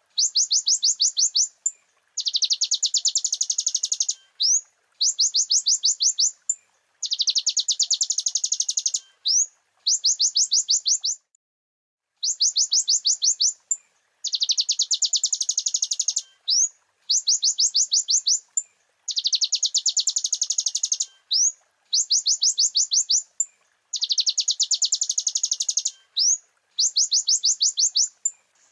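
Kolibri ninja sunbird (konin) singing in a masteran training recording: high, fast trills of rapid notes, each lasting a second or two, alternating with single quick upswept chirps and short pauses, repeated over and over.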